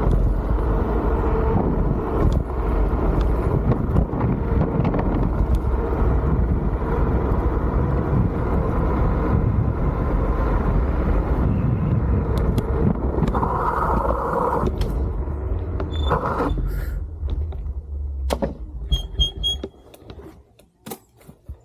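Wolf King GT Pro electric scooter on the move: a steady rumble of wind and road noise that drops away about 20 seconds in as the ride stops. A few short clicks follow near the end.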